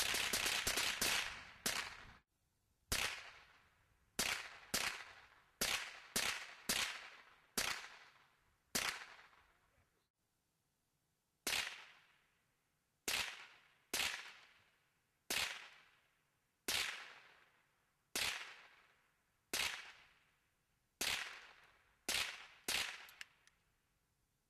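Gunfire at pumpkin targets: a rapid string of shots ends about two seconds in, then about twenty single shots follow at irregular intervals of roughly one to three seconds. Each shot is a sharp crack with an echoing tail lasting about a second.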